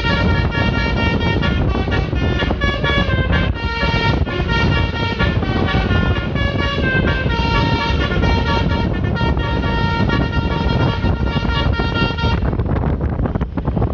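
Basuri multi-tone telolet bus horn playing a tune of stepped notes over road and wind noise, stopping about twelve seconds in.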